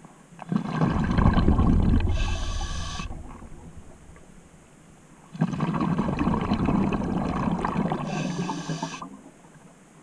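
Scuba diver breathing through a regulator underwater, heard twice: each breath is a loud rumble of bubbles with a short high hiss near its end, with a quieter gap of a couple of seconds between.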